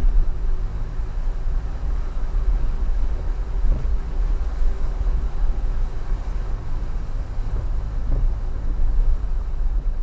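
Toyota Avanza 1.3-litre engine running as the car wades through floodwater, a steady low rumble with water noise over it.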